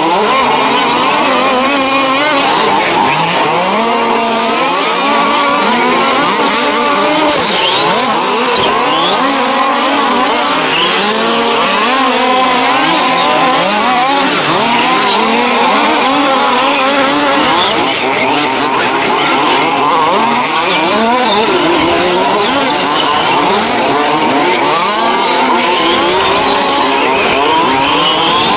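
A pack of 1:5-scale petrol RC cars racing, their small two-stroke engines revving and overlapping, each rising and falling in pitch continuously as the cars accelerate and brake around the track.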